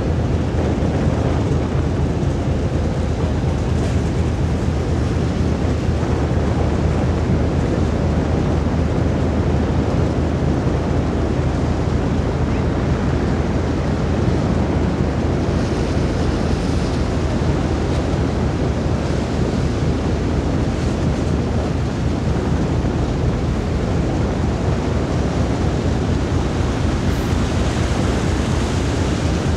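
Steady wind rushing and buffeting on the microphone on a ferry's open deck, over a low steady rumble from the ship and water churned along the hull as it moves off.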